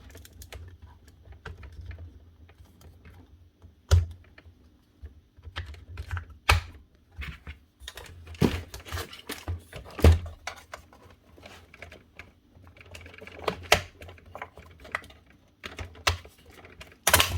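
Irregular plastic clicks and knocks from handling a cordless line strimmer's spool and head as the line spool is put back together, with several louder knocks spread through.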